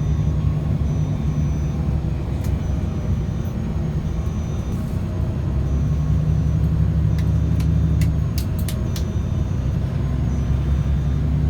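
Steady low rumble of a moving road vehicle's engine and tyres, with a few sharp clicks or rattles about seven to nine seconds in.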